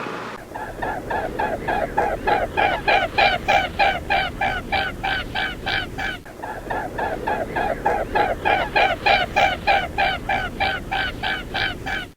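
A bird calling over and over, fast and evenly at about three or four short pitched calls a second, with a brief break about halfway through.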